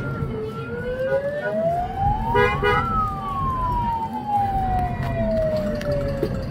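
Emergency-vehicle siren sounding a slow wail, its pitch rising for about two seconds and then falling for about four. A short horn blast cuts in about two and a half seconds in, over the low rumble of a slowly moving car.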